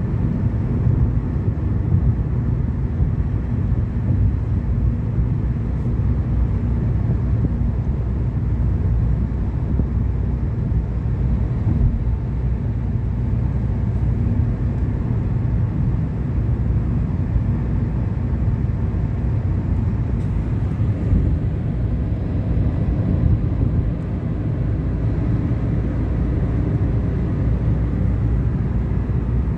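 Car driving at a steady speed: a steady, low road and engine rumble.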